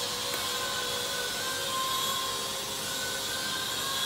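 Steady machine whir with a few thin steady tones, such as the fan of the welding set or the shop's fume extraction running; near the end the TIG arc is struck on the stainless-steel flange joint, barely changing the steady sound.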